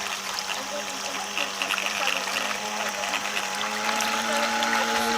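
Graupner Speed 700 BB Turbo electric motor of a vintage wooden RC boat running with a steady whine over the wash of water, its pitch stepping up slightly about three and a half seconds in.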